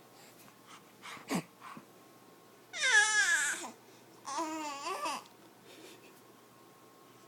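A four-month-old baby girl babbling: two drawn-out cooing sounds with wavering pitch, about three and four and a half seconds in, the first louder and falling in pitch, after a brief short sound about a second in.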